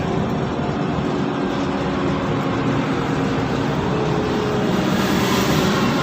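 Mercedes-Benz O530 Citaro city bus under way: a steady run of engine and road noise with a faint whine drifting in pitch.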